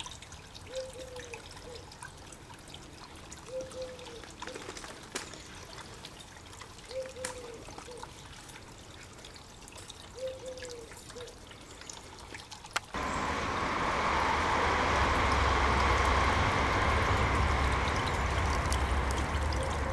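A quiet outdoor background with a faint short call repeating about every three seconds. About two-thirds of the way through, a steady rushing noise like running water, with a low rumble under it, starts suddenly and carries on.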